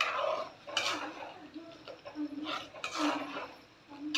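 A metal ladle stirring sambar in a metal pot, scraping and clinking against the pot's sides several times.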